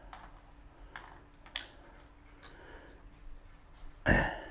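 Scattered light clicks and handling noises from small parts and hand tools being handled, with a louder, short burst of noise about four seconds in.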